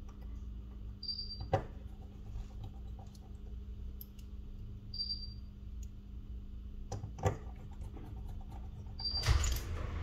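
Light clicks and taps of small parts and tools being handled on a workbench, with a louder rustle near the end, over a steady low hum; a short high beep sounds about every four seconds.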